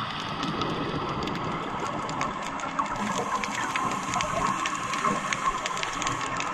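Underwater sound around scuba divers: regulator exhaust bubbling, over a dense crackle of fine clicks and a steady hum.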